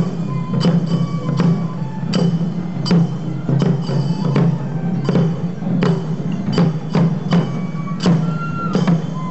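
Japanese festival music from marching players: sharp stick strikes on slung taiko drums at about two a second under short high notes from transverse bamboo flutes.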